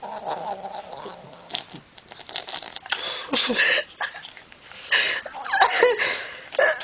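A cat making odd vocal noises: a drawn-out yowl that trails off in the first second, then short raspy, cough-like bursts about three seconds in, and a run of wavering calls near the end.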